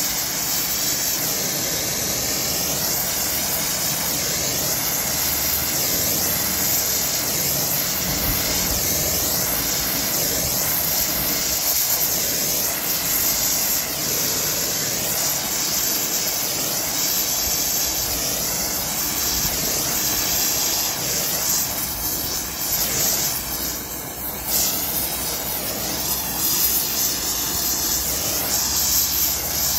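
Gas welding torch flame running with a steady hiss as it heats a dented spot on a steel two-stroke expansion chamber, gently, to work the dent out for a cosmetic finish.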